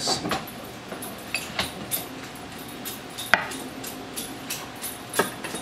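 A mallet knocking a glued wooden dovetail joint together: a handful of sharp, irregularly spaced wooden knocks, the loudest about three and a half seconds in.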